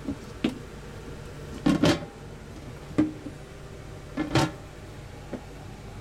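Knocks and clatter of plastic cutting-board covers being handled on a stainless steel double sink, loudest in a quick pair about two seconds in and again past four seconds, over a steady low hum.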